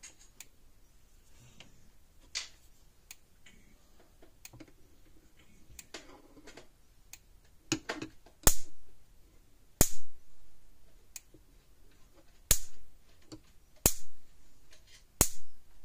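Fi-Shock Ultra Shock SS-4000 electric fence charger's high-voltage pulses sparking across a gap between two screwdrivers on its fence and ground terminals. Five sharp snaps come at an even pace about 1.3 seconds apart, starting about halfway through, with a few faint tool clicks before them. A long, loud spark like this is the sign of a hot charger putting out a lot of voltage and energy.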